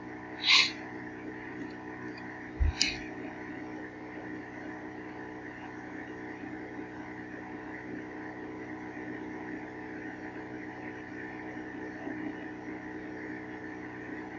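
Faint steady mains hum made of several even tones, with two sharp clicks: one about half a second in and another near three seconds in, the second with a low thump.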